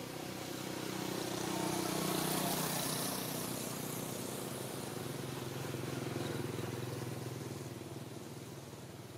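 A motor vehicle's engine passing by, its hum swelling to a peak a couple of seconds in, rising again around six seconds, then fading.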